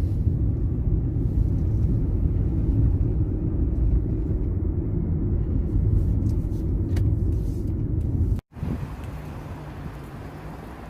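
Steady low rumble of a car on the road. About eight and a half seconds in it cuts off, and a quieter steady hum follows.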